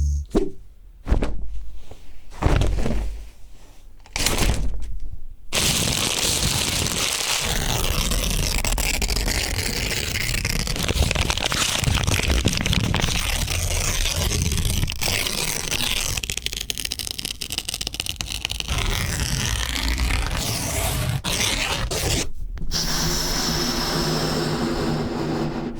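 Magic-themed sound effects: a few short separate hits, then one long dense noisy texture lasting about seventeen seconds, then after a brief drop a different texture with a few steady tones under it.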